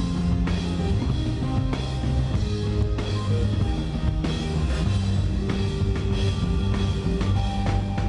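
Rock band playing live, an instrumental passage led by the drum kit, with sustained bass notes and guitar under a steady beat.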